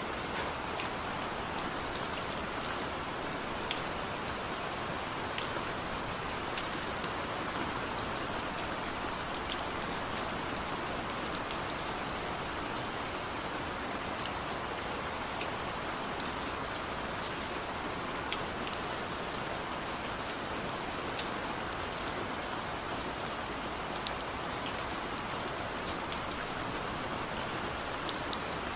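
Steady rain falling, an even hiss with many separate drops pattering on a surface.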